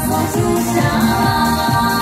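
Live band music from a concert PA, loud and unbroken, with a woman singing into a handheld microphone.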